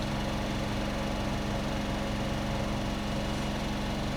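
A steady, unchanging machine hum with a low droning tone.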